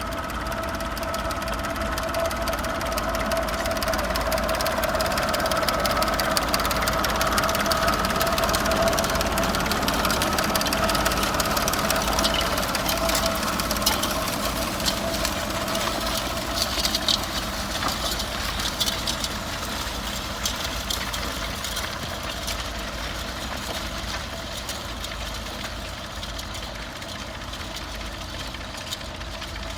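Vintage tractor engine running steadily under load while ploughing, growing louder over the first several seconds and then fading away gradually through the rest.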